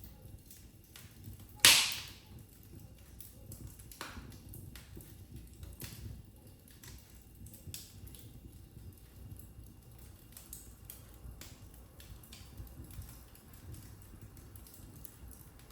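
Wood fire crackling in a fireplace: one loud sharp pop about two seconds in and a softer one around four seconds, with many small irregular crackles over a low steady rumble.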